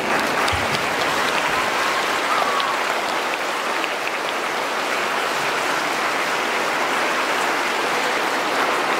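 Audience clapping: a steady, even round of applause.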